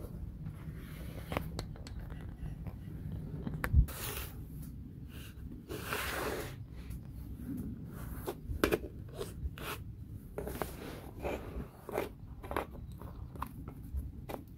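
Small wooden model-kit pieces being handled and pressed together: scattered light clicks and knocks with short scraping rubs, and one sharper knock about four seconds in.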